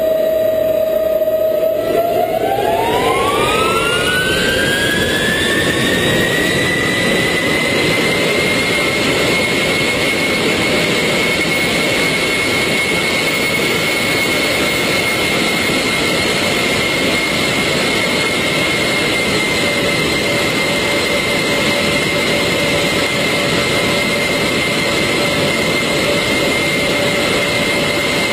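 Jet airliner's engines spooling up from low power to takeoff thrust. A whine rises smoothly from about two seconds in to about eight seconds in, then holds as a steady high whine over a loud, even rush of engine noise as the aircraft rolls down the runway.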